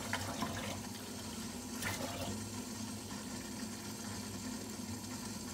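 Kitchen tap running steadily, water filling a measuring cup.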